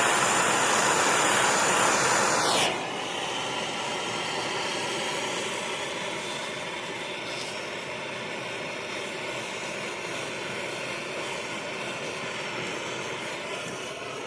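Steady rushing noise of a heat tool blowing onto PVC pipe to soften it so a barbed fitting can be forced in. It steps down in loudness a few seconds in, then runs on evenly.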